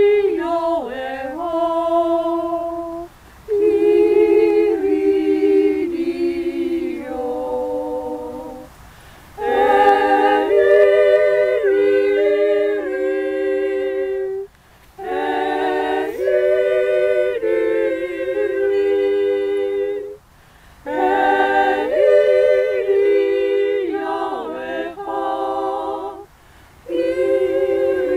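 A small group of mostly women's voices singing together unaccompanied, in sung phrases of about five to six seconds with short breaks for breath between them.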